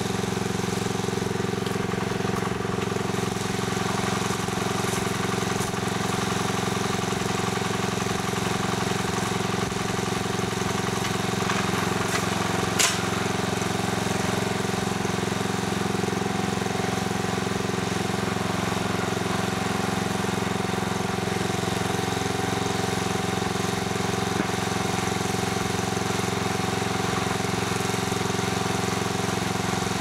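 Small engine of a homemade towable backhoe idling steadily, with one sharp click about halfway through.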